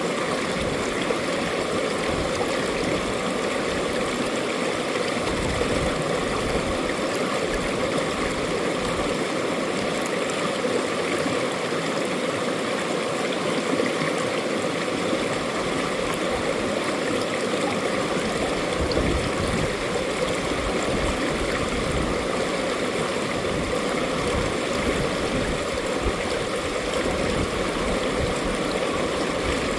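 Mountain stream water rushing and burbling over rocks, a steady, even flow.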